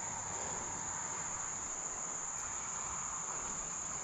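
Outdoor insect chorus: a steady, unbroken high-pitched trill.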